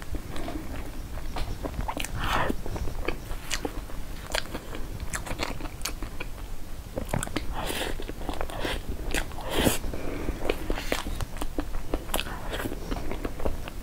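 Close-miked mouth sounds of a person eating soft cream cake: wet chewing with a steady string of sharp clicks and smacks.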